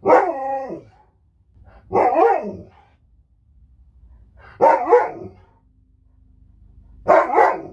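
Alaskan Malamute giving four short, pitched vocal calls, about two seconds apart, each bending and sliding down in pitch.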